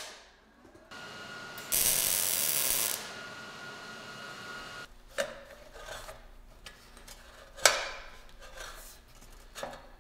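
MIG welder tacking sheet metal: a steady hiss from about a second in, loudest for just over a second around the two-second mark, stopping about halfway through. Then light metal clicks and clinks as the small sheet-metal throttle plate is slid into the firebox, with one sharp clank about three quarters of the way through.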